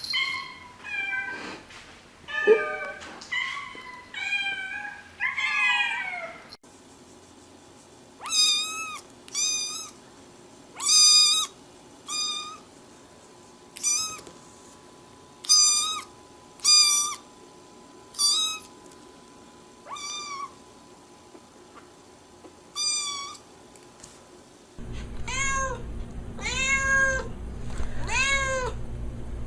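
A cat meowing over and over in short, high-pitched calls, quickly at first, then about one a second or slower. In the last few seconds a steady low hum runs under the meows.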